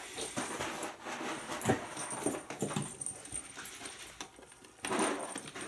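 Kittens at play: scattered light taps, scuffs and scratches of small paws and a batted toy ball on a wooden floor and cardboard scratcher, with a louder burst of noise near the end.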